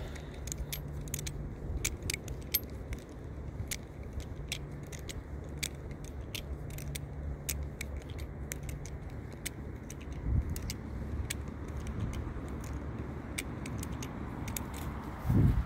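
Butterfly knife (balisong) being flipped through rollovers: an irregular run of light metallic clicks and rattles, several a second, as the handles swing round and knock against each other and the blade. Wind rumbles low on the microphone underneath.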